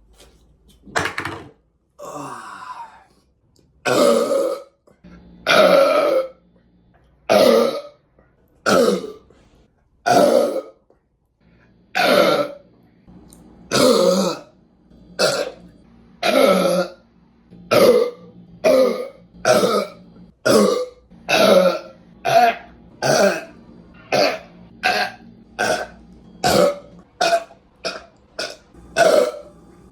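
A person belching again and again, about two dozen loud belches in a row after shotgunning a beer. The belches come shorter and quicker toward the end.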